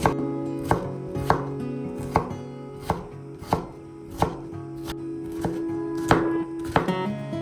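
A knife chopping on a cutting board, sharp separate strokes about one to two a second, over soft acoustic guitar music.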